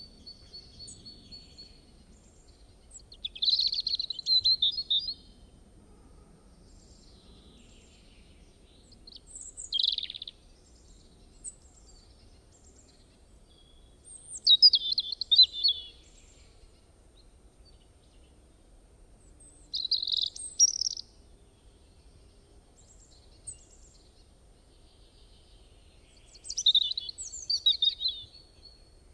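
A songbird singing in short, high-pitched phrases of chirps and trills, each a second or two long, five in all, spaced about five to six seconds apart.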